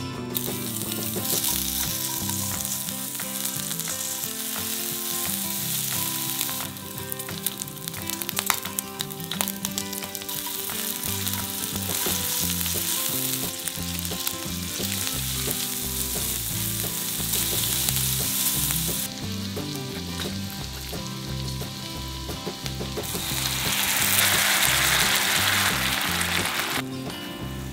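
Diced pork, vegetables and squid sizzling in hot oil in an iron pan while being stirred, with scattered clicks of utensils in the middle. The sizzle is loudest for a few seconds near the end, as the sauced jjajang noodles are stirred through.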